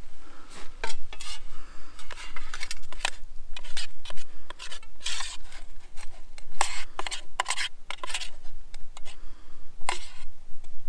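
Metal spoon scraping cooked rice out of a steel mess tin onto a steel plate: an irregular run of short scrapes and clinks of metal on metal.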